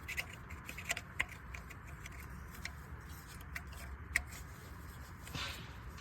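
Scattered light clicks and handling noises of hands working on engine parts, with a short rustle or scrape near the end.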